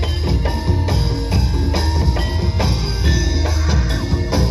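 Live Javanese gamelan-style music: struck metal keys ringing out held notes over a steady drum beat with a strong low drum.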